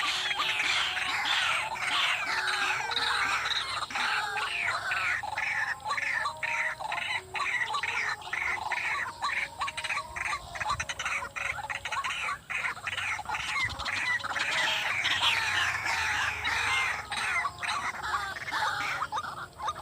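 White-breasted waterhen calling: a long run of harsh, repeated 'kruak' notes, about two a second, without a break.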